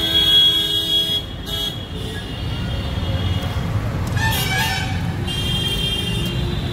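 String music plays for about the first second and then stops. After that, street traffic rumbles steadily, with vehicle horns sounding a few times in the middle and near the end.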